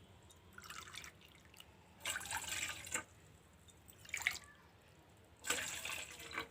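Hot water being poured into a cooking pot in four separate pours, the longest and loudest about two seconds in.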